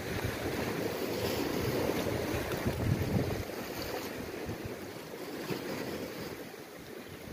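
Wind buffeting the microphone over the wash of sea waves. The wind gusts ease a little about halfway through.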